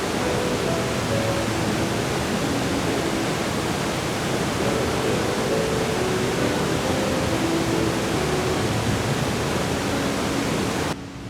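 Steady, loud rush of water from a large waterfall falling 83 m in three tiers, recorded close to the falls. It cuts off abruptly near the end.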